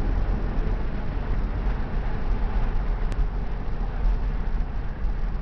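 Steady road noise of a moving car heard from inside the cabin, a low rumble of engine and tyres, with a single short click about three seconds in.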